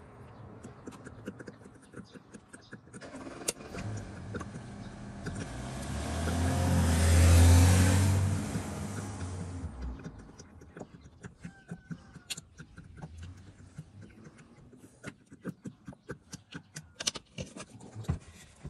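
A vehicle engine grows louder, peaks about seven seconds in and cuts off near ten seconds. Around it, quiet clicks and glugs of engine oil being poured from a plastic jug through a funnel.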